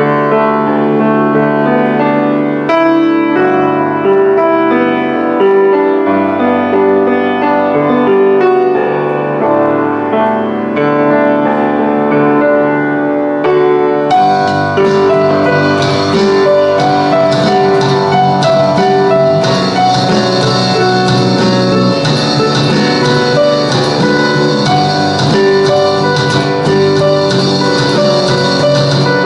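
Piano playing a pop-rock melody over a bass line. About halfway through, a drum kit with cymbals comes in and the full band plays on together.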